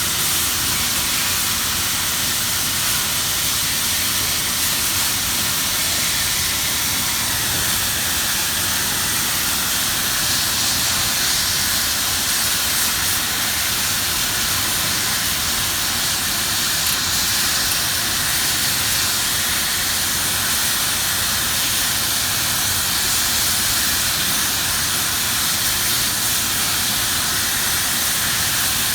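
Gas brazing torch flame hissing steadily while a valve is hand-brazed.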